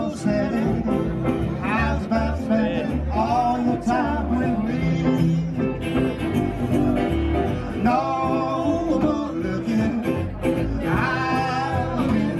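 Live band playing an upbeat number: a plucked upright double bass under guitar and a singing voice.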